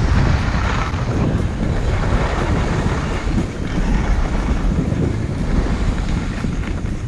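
Wind buffeting the microphone: a loud, gusty rumble and rush with no clear pitch.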